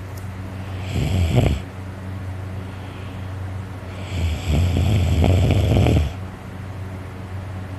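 A person snoring loudly in deep sleep: a short snore about a second in, then a longer, rattling one from about four to six seconds. A steady low hum runs underneath.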